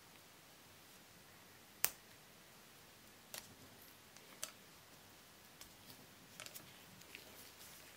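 Faint, scattered small clicks and ticks of a fine blade and a wooden stick picking at small toy car parts, with one sharper click about two seconds in.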